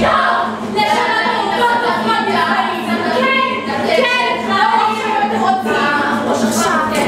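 Several performers, mostly women, singing together without instrumental accompaniment.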